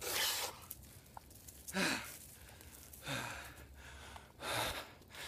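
A man breathing hard in ice-cold lake water: four noisy gasping breaths about a second apart, two of them with a little voice in them, one falling in pitch. Hard, sharp breathing of this kind is typical of the body's reaction to cold water.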